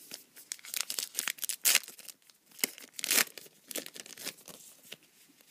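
Plastic foil wrapper of a trading-card pack being torn open and crinkled, a run of short, sharp rips and crackles with two louder tears about 1.7 and 3 seconds in.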